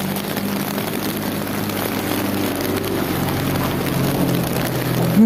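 Steady rain hiss over a low, steady engine hum. A short, loud pitched sound rises and falls near the end.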